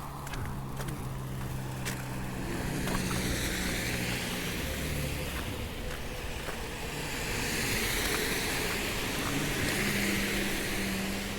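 Road traffic passing: tyre hiss that swells as cars go by, about three seconds in and again from about seven to ten seconds in, over a low engine hum.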